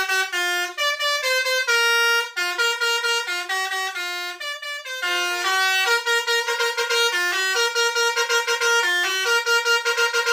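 Telolet bus horn, a multi-tone musical horn, playing a fast tune of short, bright notes.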